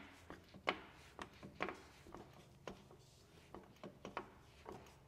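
A series of light, short clicks and knocks, about two a second and unevenly spaced, from work around a car on a lift.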